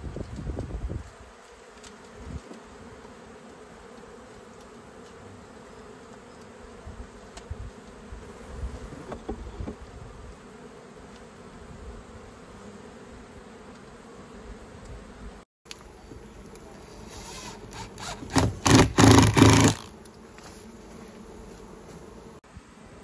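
Steady buzzing hum of a honeybee colony disturbed as it is cut out of a shed wall, with many bees in the air. A little past the middle, a loud rustling burst lasts about two seconds.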